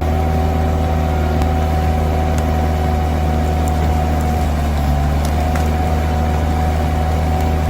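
An engine running at a steady speed: a constant low drone with a steady high whine over it and a few faint clicks.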